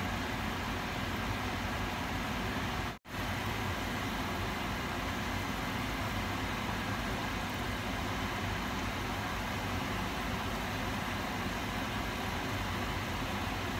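Hot oil sizzling steadily as sesame-coated binangkal dough balls deep-fry in a pot. The sound drops out to silence for a moment about three seconds in.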